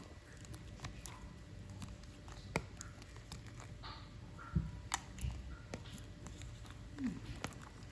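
Quiet kitchen handling: scattered light clicks and a few soft thuds of utensils being handled as the cooked aci dough is readied for cutting, over a faint steady hum.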